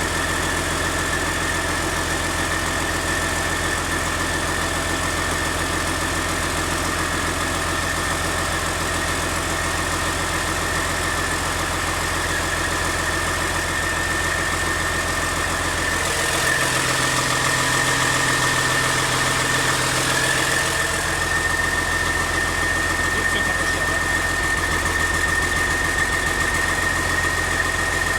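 Freshly rebuilt Caterpillar C13 inline-six diesel engine idling steadily, with a constant high whine over the engine note. About two thirds of the way in it speeds up and runs a little louder for about five seconds, then settles back to idle.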